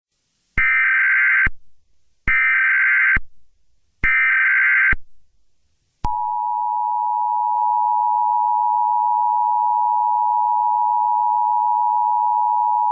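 Emergency Alert System broadcast tones: three short, loud bursts of SAME header data, each just under a second, then the steady two-tone EAS attention signal starting about six seconds in.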